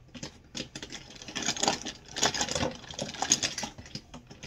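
Hands rummaging through a cardboard box of small cosmetics, lip-product tubes and nail-polish bottles, with a rapid clatter of clicks and rustling that is busiest around the middle.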